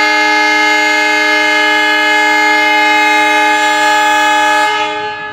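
Horn of an ALCO diesel locomotive sounding one long, steady blast made of several tones at once, which stops near the end.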